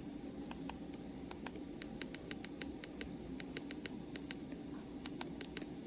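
Weather radio receiver crackling with sharp, irregular static clicks, several a second, over a faint low hum, with no broadcast voice. It is a sign of the receiver acting up or of poor reception.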